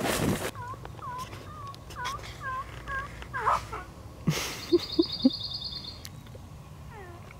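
Wild turkey yelping: a run of short curved yelps about twice a second, then a longer falling note, a few short low notes and more falling yelps near the end. A burst of rustling noise cuts off about half a second in.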